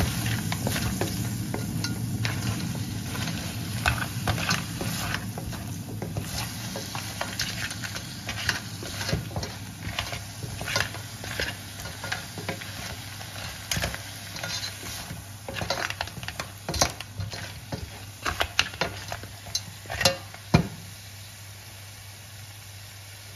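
Crab pieces cooking in a pot with a steady sizzle that slowly gets quieter, while a spoon stirs them and clinks against the pot. The clinks come thickest in the second half and stop a couple of seconds before the end.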